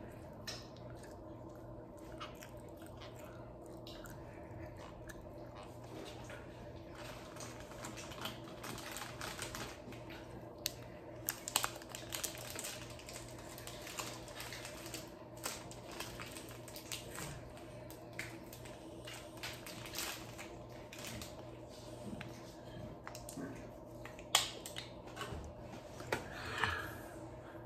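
Scattered light clicks and taps, with a few louder sharp ones, over a steady low hum.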